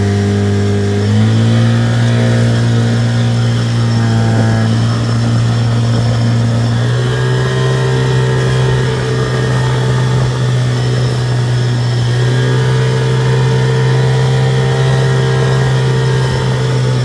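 Mariner 30 outboard motor running at speed, pushing a small inflatable boat; its engine note rises slightly about a second in, then holds steady.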